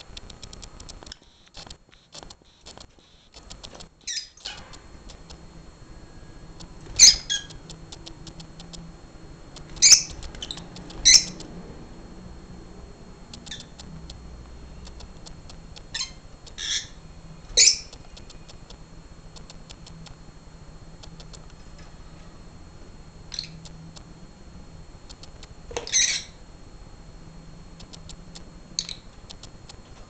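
Lovebirds giving short, sharp, high-pitched calls, about nine scattered through, some in quick pairs.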